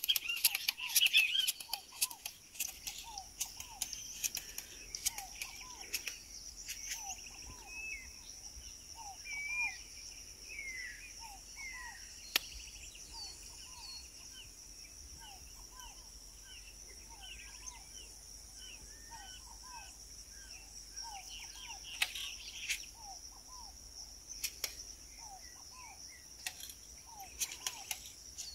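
Outdoor countryside ambience: birds chirping with many short, repeated calls over a steady high-pitched drone, with a few sharp clicks in the first couple of seconds and again about twenty-two seconds in.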